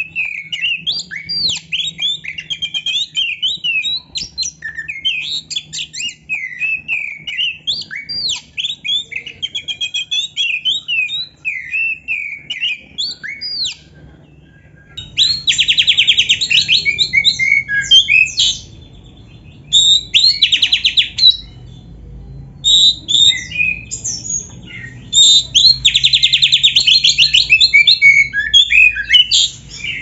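Oriental magpie-robin in full song, its repertoire filled with canary-style phrases. The first half is a quick run of varied whistled notes. The second half has three bouts of loud, fast rolling trills.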